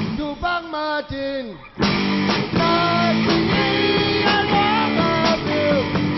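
Live rock band: a few short, stop-start hits that slide down in pitch, then about two seconds in the full band comes in with electric guitar, bass and singing.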